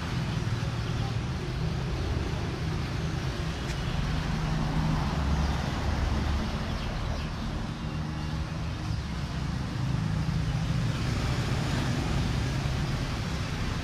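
Steady outdoor background noise: a low, slowly wavering rumble under an even hiss.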